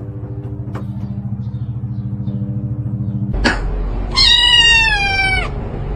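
A cat meows once, a long meow that slides down in pitch, about four seconds in. Before it there is a low, steady pulsing hum, and a short click comes just before the meow.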